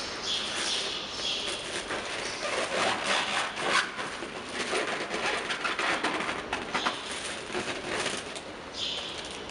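Clear plastic bag crinkling and rustling as it is squeezed and pressed, a dense run of small crackles, with a brighter hiss near the start and again near the end.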